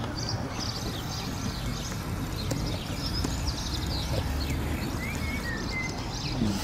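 Outdoor ambience: a low, uneven rumble of wind on the microphone, with faint bird chirps now and then.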